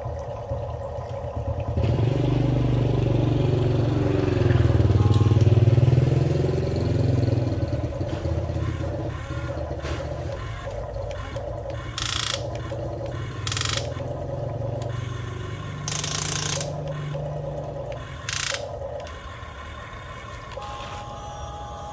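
Small electric motors of a toy RC excavator humming steadily, loudest for several seconds near the start, with four short bursts of scraping noise in the second half.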